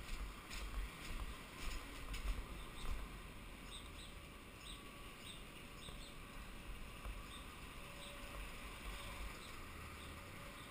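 Mountain bike rolling fast downhill over cobblestones: clattering knocks and jolts over the rough stones in the first few seconds, then a steadier rolling rush with light regular ticks.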